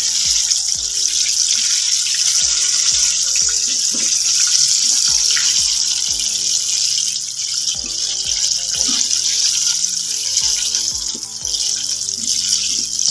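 Battered chicken pieces deep-frying in a wok of hot oil: a loud, steady sizzling hiss, with background music underneath.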